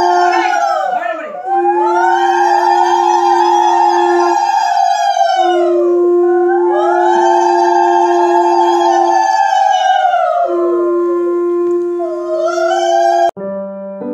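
Conch shell (shankha) blown in long steady blasts, one after another with short breaths between. Higher wailing tones rise and fall over them. It cuts off suddenly near the end, and piano music comes in.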